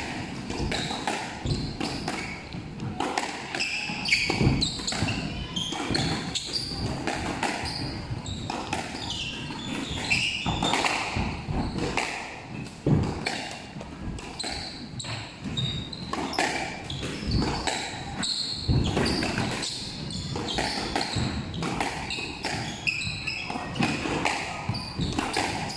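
Squash rally: a squash ball struck by rackets and smacking off the court walls many times, with shoes squeaking and shuffling on the wooden court floor.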